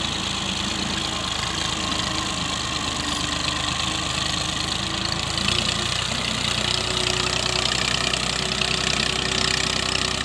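Farm tractor's diesel engine running steadily, its low hum shifting in pitch and a little louder about halfway through.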